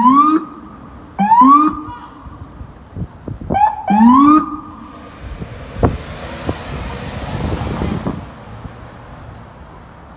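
Police vehicle's electronic siren giving short rising whoops, four or five in the first five seconds, each climbing quickly and then holding briefly. After them comes a rushing noise for about three seconds, with a sharp click in the middle, as the police SUV passes.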